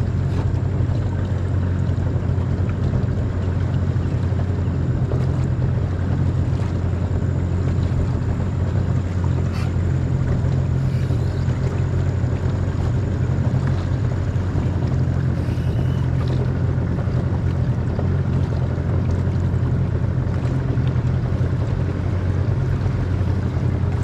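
Small boat's motor running steadily while cruising, a constant low drone with no change in speed.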